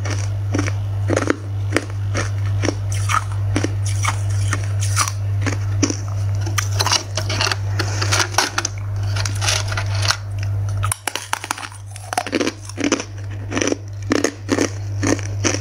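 Hard clear ice being bitten and chewed, a run of sharp cracking crunches several times a second, over a steady low hum that drops out briefly about eleven seconds in.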